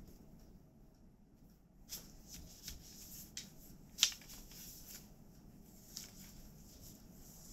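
Wooden loom for bark-fibre cloth being worked by hand: scattered dry clicks and knocks of the wooden parts against the warp, with light rustling of the fibres. It starts about two seconds in, and the sharpest knock comes about four seconds in.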